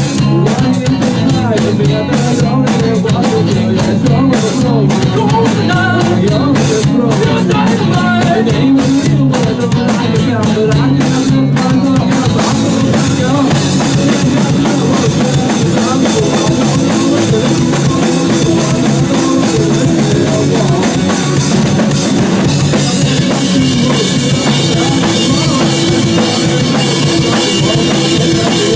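Rock band playing a song on drum kit, guitars and bass, with some singing. About twelve seconds in, the playing grows denser and fuller.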